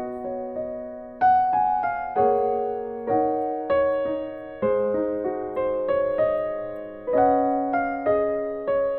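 Gentle background piano music: sustained notes and chords struck about once or twice a second, each fading before the next.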